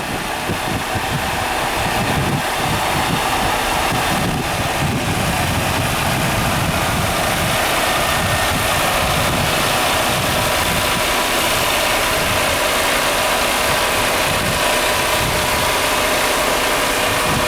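Diesel engine of a Mercedes-Benz 3240 8x4 concrete mixer truck running steadily.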